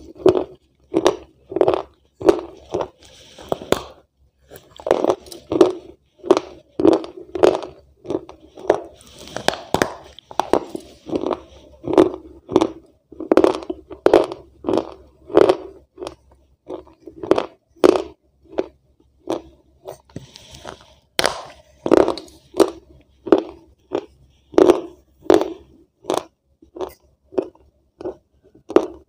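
A person biting and chewing a dry, crumbly white block, a steady run of crisp crunches about two a second.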